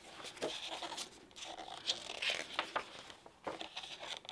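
Paper pages of a hardcover picture book being turned by hand: a string of soft rustles and flicks as the pages are lifted and laid down.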